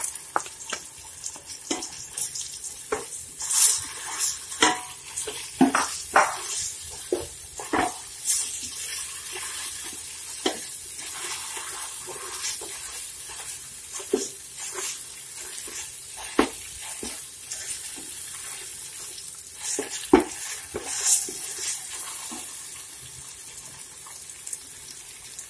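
Sliced onions and ginger-garlic paste sizzling in hot oil in a large aluminium pot: a steady hiss, with a wooden spatula stirring and scraping against the pot in irregular clicks and knocks.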